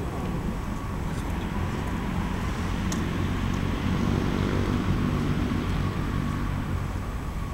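Steady low rumble of road traffic, with a passing motor vehicle's engine growing louder around the middle and then fading.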